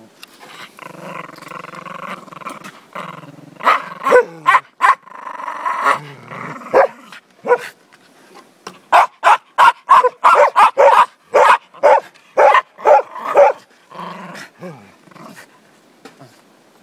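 Border terrier growling while it bites and tugs at a stick, breaking into a few sharp barks, then a fast run of loud barks, about three a second, in the second half. It goes back to growling near the end.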